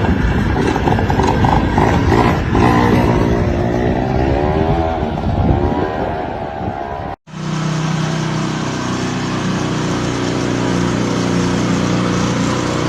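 Motor noise in two parts: first a pitch that slowly rises and falls, then, after an abrupt cut about seven seconds in, a steady even hum.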